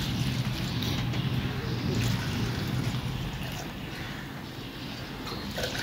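Water poured from a steel tumbler into a steel pot of finger-millet flour, a steady splashing stream that eases off about four seconds in. A low steady hum runs underneath.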